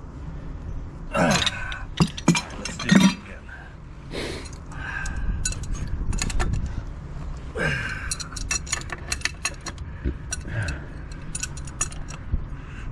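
Metal-on-metal clinks and clicks of hand tools on a steel gas service riser and its fittings as they are worked with a wrench, with a dense run of small irregular clinks in the second half.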